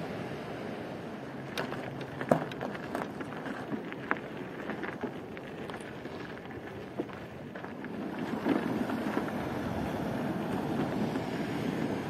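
Steady outdoor rushing noise with wind on the microphone. A few light clicks and knocks come between about one and a half and five seconds in, and the noise swells about two-thirds of the way through.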